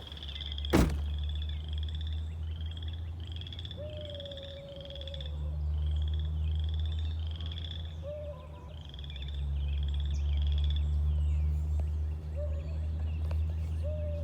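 Wild animal calls: a run of short, high, arched calls repeating about twice a second, with a few longer, lower whistle-like calls among them, over a steady low rumble. A single sharp knock comes about a second in.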